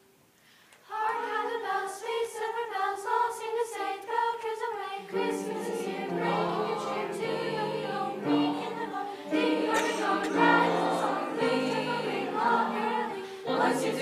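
School choir singing in parts. The singing starts about a second in, and lower voices join about five seconds in.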